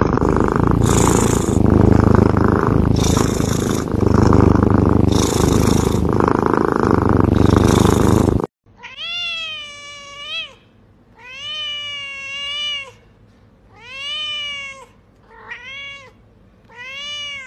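A close, loud cat purr swelling about every two seconds with the breathing, then after a cut a cat meowing about six times, each call rising and falling in pitch, the last ones shorter and quicker.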